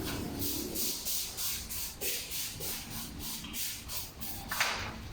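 Rhythmic hissing rubbing strokes, about three a second, on a plastic mannequin part as it is wiped and cleaned with alcohol.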